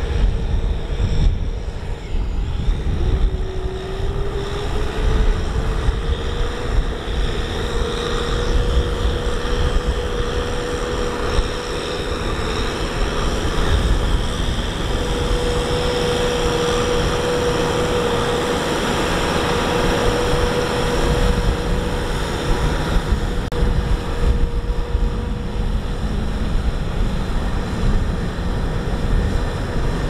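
Rice combine harvester running steadily, its engine and threshing drive giving a low rumble under a steady whine. The whine drops in pitch about three seconds in and climbs back over the next few seconds.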